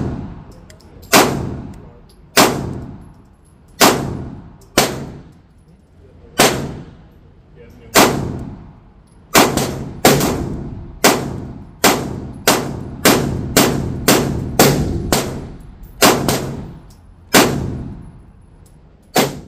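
Sig Sauer 9mm pistols firing about twenty shots at an uneven pace, some in quick pairs, each a sharp crack trailing off over about a second.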